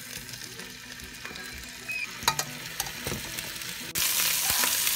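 Seasoned chicken pieces sizzling in hot oil in a nonstick pan, with a couple of sharp clicks from the metal tongs as pieces are set in. About four seconds in the sizzle becomes suddenly louder and fuller, the pan now crowded with browning chicken.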